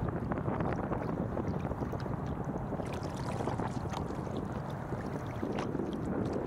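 Kayak paddles dipping and splashing in choppy water, with water slapping against the hull and steady wind noise on the microphone.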